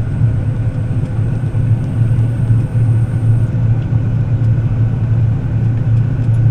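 John Deere combine harvester running steadily during wheat harvest, a constant low engine and machine drone with a few steady higher whines over it.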